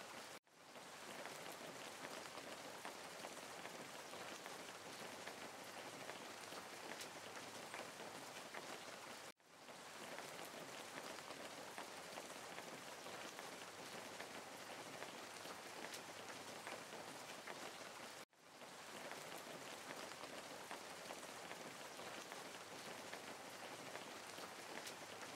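Faint, steady rain-like hiss that cuts out for an instant and fades back in three times, about every nine seconds, like a looping background track.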